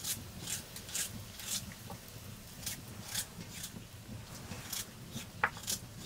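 A large knife blade shaving slices off a white radish: short, separate scraping strokes, roughly two a second and unevenly spaced. One sharper, louder sound near the end.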